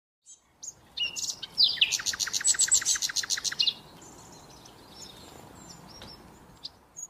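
Small birds chirping, with a fast trill of about a dozen evenly spaced notes around two to three and a half seconds in, then a few scattered chirps over a faint steady hiss.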